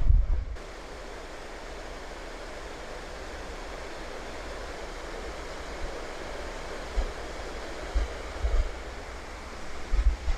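Steady rush of falling or flowing water. Wind buffets the microphone with a few low thumps, the strongest right at the start and more near the end.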